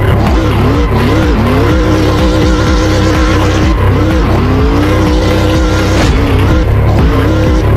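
Race car engine revving, its pitch wavering up and down, levelling off, then climbing again, with tyre squeal from a drift, over a phonk track's heavy bass beat.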